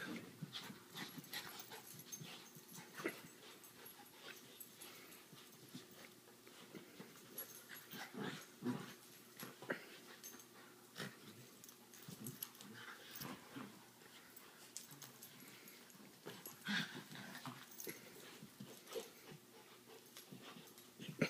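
Two puppies play-fighting: quiet, on-and-off dog noises and short scuffles, with a few louder moments.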